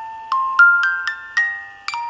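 Background music: a light melody of bell-like struck notes, about three a second, each ringing and fading before the next.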